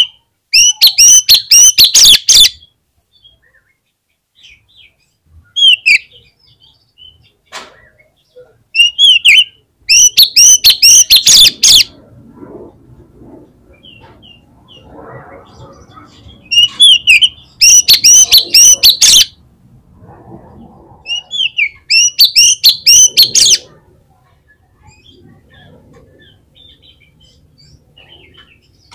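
Oriental magpie-robin (kacer) in full song: four loud bursts of rapid repeated notes a few seconds apart, with short rising and falling whistles between them.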